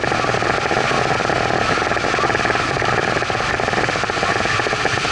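Evinrude outboard motor running steadily at speed under the load of towing a kneeboarder, mixed with the rush of wind and the churning wake.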